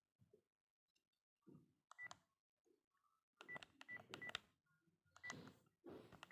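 Faint keypad beeps from a Panasonic mobile phone, about five short beeps at one high pitch, each with the click of a button being pressed, as its menu is worked through.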